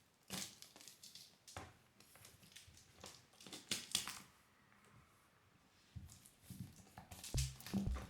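Irregular rustling and crinkling scuffs, a few short ones at a time. Near the end a music track with a bass drum beat comes in.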